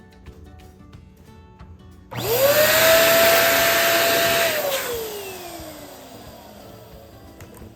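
Electric balloon air pump switched on about two seconds in, its motor whining up to speed and blowing steadily for a couple of seconds to inflate a balloon, then switched off and winding down with a slowly falling whine.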